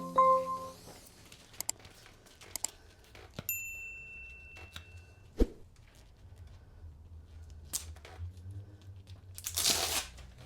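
Paper crinkling and scattered clicks as backing paper is peeled from a self-adhesive sound-deadening mat, with a sharp knock about five seconds in and a loud tearing rip near the end. A few held music notes fade out in the first second.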